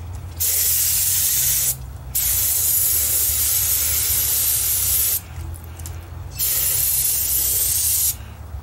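Aerosol can of carburetor cleaner spraying in three bursts, the middle one the longest at about three seconds, cleaning an oil bath air filter's wire-mesh element.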